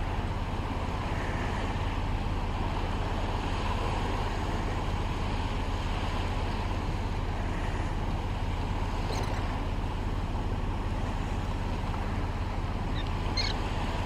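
Steady wind rumble on the microphone mixed with small waves washing on a rocky shore. Two faint, brief high chirps come through, one about nine seconds in and one near the end.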